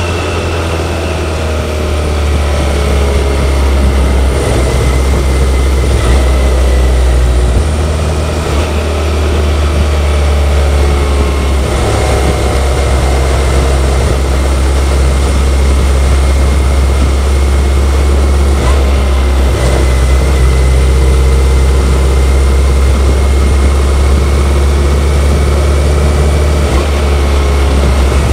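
BMW K1100LT's inline-four engine running under way at road speed, a steady drone with wind rush over it and a thin high whine, its pitch and load shifting a few times with throttle and gear changes.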